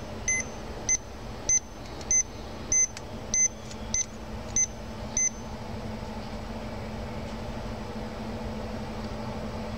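About ten short, high-pitched electronic beeps, evenly spaced a little over half a second apart, that stop about five seconds in, over a steady low hum.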